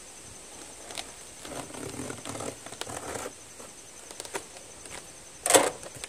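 Cardboard microwave box being pulled open by hand: flaps rustling and scraping, a few small clicks, and one loud sharp snap near the end.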